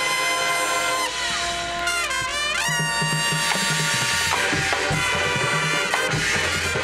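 High school marching band playing loud sustained brass chords, with a swooping pitch bend in the brass about two seconds in. Heavy low drum hits join from about four seconds in.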